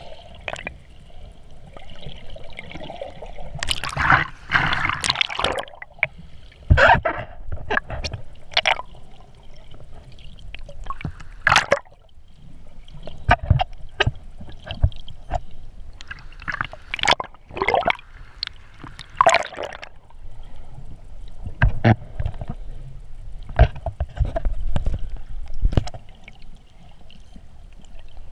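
Seawater heard from a camera held under water: a muffled, shifting wash of moving water broken by irregular sharp clicks and knocks. The loudest rush comes about four to five seconds in.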